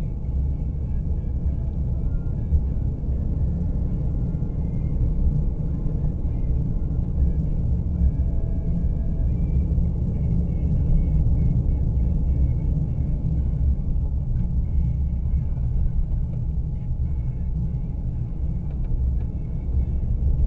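Steady low rumble of a car's engine and tyres while driving, heard from inside the car.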